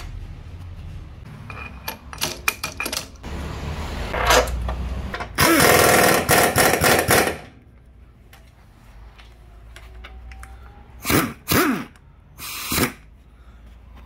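Pneumatic impact wrench rattling in bursts: one long burst of about two seconds in the middle, then two short ones near the end, each dropping in pitch as it stops. Before the first burst come several sharp metal clicks and knocks.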